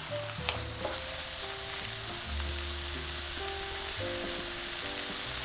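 Stir-fry of vegetables, pork and squid sizzling in a frying pan over high heat as it is tossed with a wooden spatula, with a few light spatula clicks in the first second. Soft background music plays under it.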